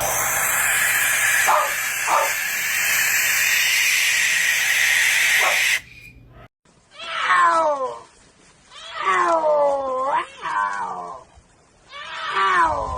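A loud, harsh hissing screech lasting about six seconds that stops abruptly. After a short pause come three drawn-out, cat-like yowls, each falling in pitch.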